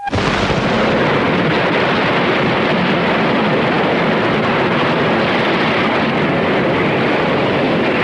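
Heavy ocean surf breaking against a rocky coastline: a loud, steady roar of crashing water that starts abruptly.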